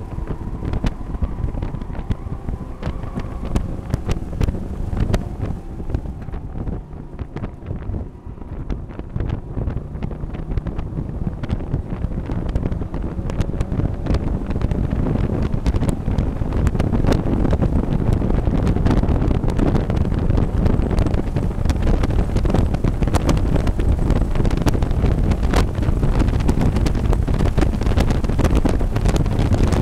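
Mazda MX-5 race car's four-cylinder engine under throttle, heard from inside the cockpit. It is largely buried under heavy wind buffeting on the onboard camera microphone, which grows louder about halfway through.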